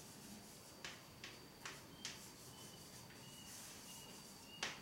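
Chalk writing on a chalkboard: faint short scratches and taps of chalk strokes, a few about half a second apart, then a longer scratch and a sharper stroke near the end.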